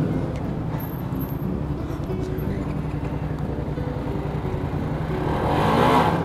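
Motorcycle engine running at low speed with road and wind rumble, as heard on the rider's own bike; near the end it gets louder and rises in pitch.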